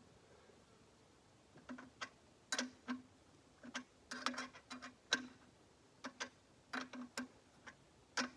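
Ratchet wrench with a 1/2-inch socket clicking in short, irregular runs as the mower's wheel bolts are tightened.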